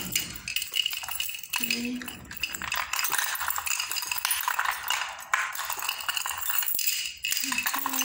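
Bunch of metal keys jingling and clinking against each other as they are hung on the hooks inside a key box.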